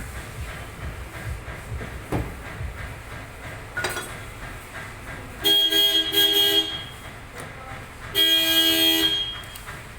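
A vehicle horn sounding two long blasts, the second a little shorter, with a few light knocks before them.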